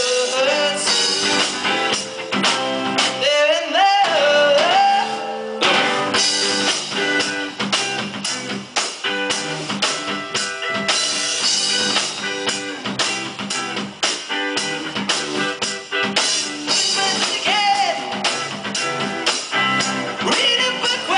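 Indie rock band playing live: electric guitars and drums with a male lead vocal singing, the voice heard mainly near the start and again near the end.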